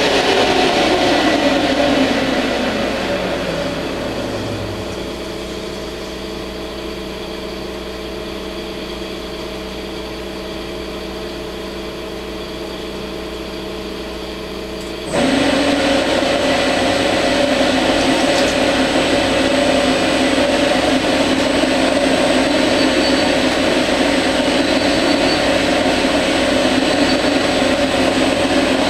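CNC lathe spindle winding down, its motor note falling steadily in pitch and level over the first few seconds, then a quieter steady machine hum. About halfway in the spindle starts again abruptly and runs at a steady speed with a thin high whine above it.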